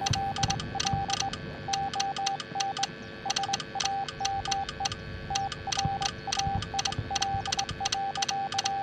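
Morse code sent as a steady beep switched on and off in short dots and longer dashes, with a sharp click at the start and end of each element and brief pauses between groups.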